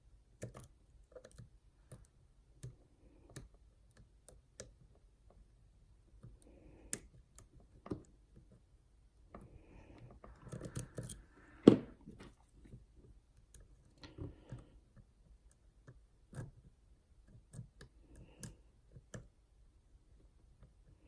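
Small metallic clicks and scrapes of lock picks and a tension tool working the pins and sliders inside a Yale Superior lock, irregular and scattered, with one much louder click a little past the middle.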